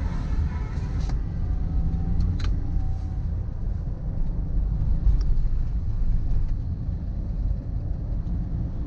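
Steady low rumble of a vehicle travelling on the road, with a few short clicks, the clearest about one and two and a half seconds in.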